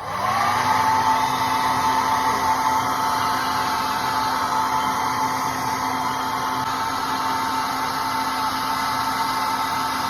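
Philips BHC010 hair dryer switched to its second speed, a hot-air setting: the motor spins up with a brief rising whine, then runs steadily, a constant whine over the rush of blown air.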